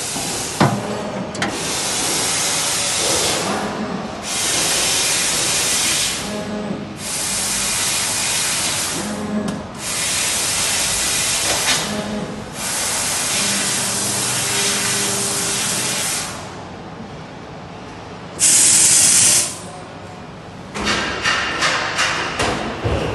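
Fiber laser cutting head hissing with assist gas as it cuts 10 mm carbon steel plate, in bursts of about two seconds with brief breaks between them. Near the end comes one short, louder blast of gas, followed by a run of rattling clicks.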